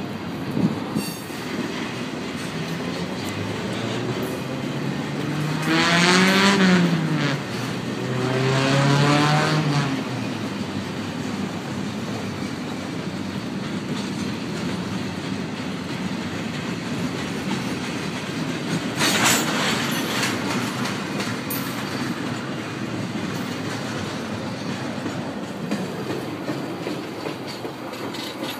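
Union Pacific double-stack container train rolling past with a steady rumble of wheels on rail. Twice, around six and nine seconds in, a loud pitched sound rises and falls over the rumble, and a brief louder burst comes about nineteen seconds in.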